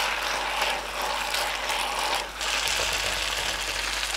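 Pasta sizzling in an electric double frying pan while a wooden spatula stirs and scrapes through it against the pan, with a brief lull about two seconds in.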